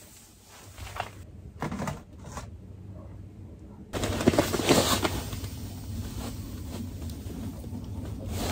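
Handling noises: fabric rustling and a few soft knocks as a sweatshirt sleeve brushes past and a quilted pouch is handled. About four seconds in, a steady low hum with a hiss over it sets in.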